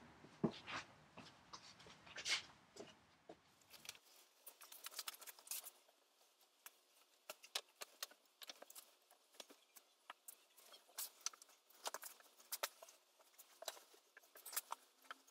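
Cotton sheet rustling and a few soft knocks as the sheet is tucked around a futon on a wooden bed frame. After about four seconds these give way to faint, scattered small clicks and ticks.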